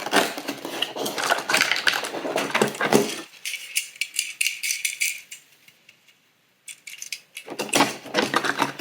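Rustling, crinkling and clicking of small cardboard and plastic packaging being opened by hand, with a small toy rattling. The handling stops and it falls almost silent for a moment just past the middle, then the clicking starts again.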